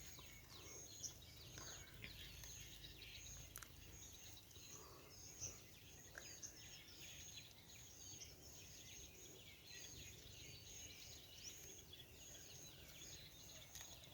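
Near silence with faint outdoor ambience: scattered small bird chirps and a faint high-pitched call pulsing about twice a second.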